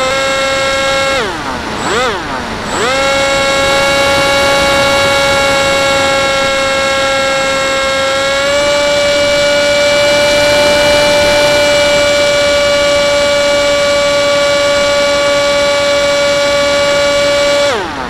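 FPV model plane's motor and propeller whining steadily, heard from on board. The pitch drops and climbs back twice in quick succession about a second in as the throttle is chopped and reopened, steps slightly higher around the middle, and drops again near the end.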